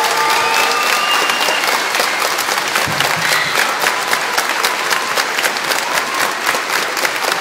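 Crowd applauding: many hands clapping steadily, with a few voices calling out in the first couple of seconds.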